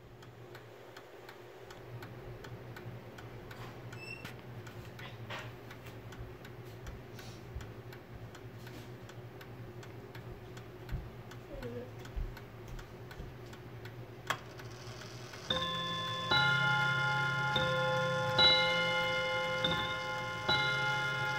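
Sessions mantel clock ticking steadily. About fifteen seconds in it begins striking the hour, one ringing strike about every second, and the strikes carry on past the end. With the hands at eight o'clock, this is the clock striking eight.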